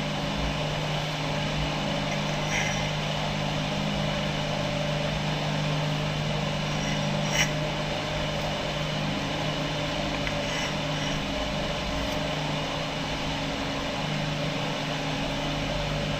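Steady mechanical hum of a running appliance, with a constant low tone. A few faint light clicks come through it, the clearest about seven seconds in.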